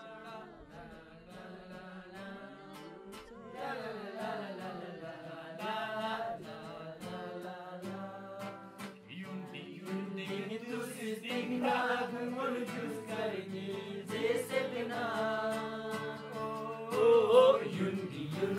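Music with a singing voice carrying a slow melody, growing louder.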